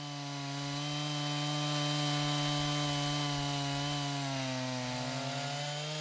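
Chainsaw on a PortaMill PM14 chainsaw mill ripping lengthwise through a squared log: a steady engine drone under cutting load over the hiss of the chain in the wood. Its pitch sags slightly and then begins to rise near the end.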